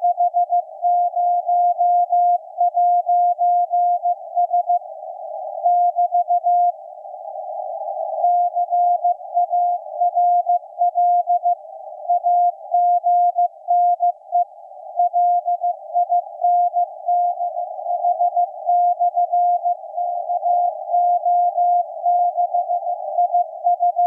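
Morse code from maritime coast station KPH received on shortwave in CW mode: a single steady tone keyed on and off in dots and dashes over a narrow band of receiver hiss. The keying breaks off briefly near five seconds and again for about a second and a half around seven seconds in, leaving only the hiss, then carries on.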